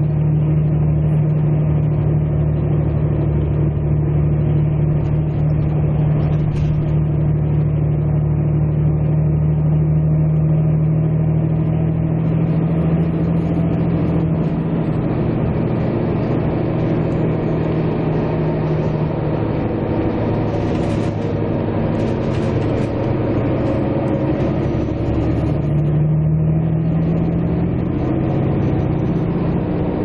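Vehicle engine running steadily with a low droning hum. Its pitch drops a little about halfway through and rises again a few seconds before the end.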